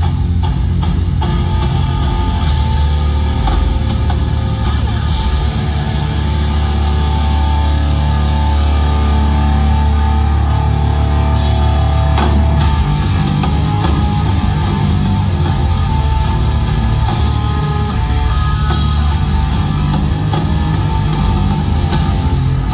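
Live progressive metal band playing loudly in an arena: a heavy, sustained bass under a driving drum kit, with cymbal crashes every few seconds and guitar.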